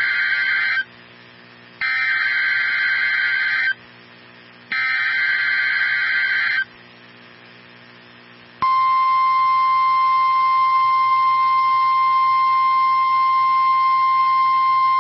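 NOAA Weather Radio alert signal. The SAME digital header plays as three harsh buzzing data bursts with about a second of near-quiet low hum between them, the first cut short at the start. Then the steady, single-pitched Weather Radio warning alarm tone comes on a little past halfway and holds. The tones announce a severe thunderstorm watch.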